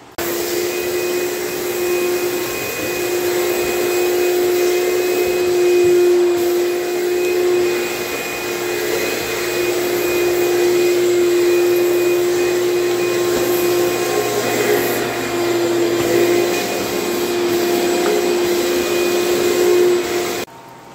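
Wet/dry shop vacuum running steadily with a held hum, its floor wand drawn over a wet hardwood floor to pick up the stripping residue. It cuts off abruptly near the end.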